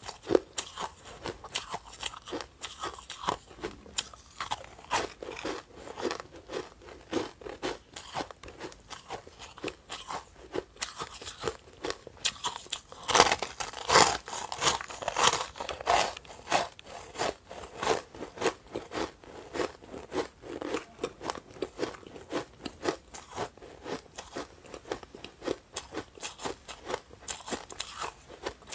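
Close-miked crunching of a molded ball of shaved ice being bitten and chewed: a rapid, uneven run of sharp icy crunches, thickest and loudest about halfway through.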